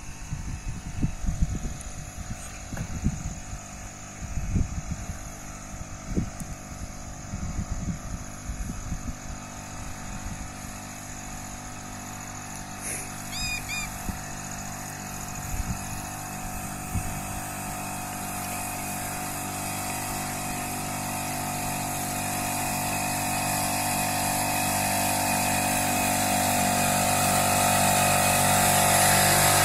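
Small petrol engine of a motorized crop sprayer running steadily, growing steadily louder through the second half. Low thumps come and go in the first half.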